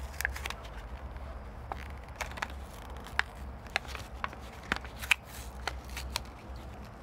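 Plastic packaging crinkling and clicking as it is handled: a dozen or so scattered sharp ticks and crackles over a steady low rumble.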